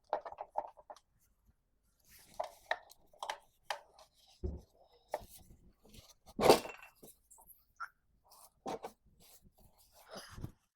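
Hard objects being handled: scattered clinks, taps and light scrapes, like tools and small metal parts being picked up and set down, with one louder knock about six and a half seconds in.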